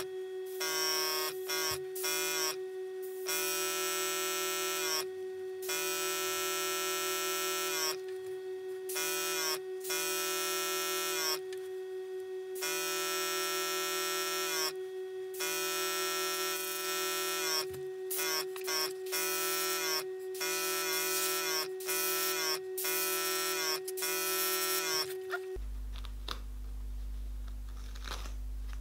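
Airbrush compressor running with a steady whine, and a pitched hiss that starts and stops in short and long bursts as the airbrush trigger is pressed and released. Near the end the whine stops, leaving a low hum and a few faint clicks.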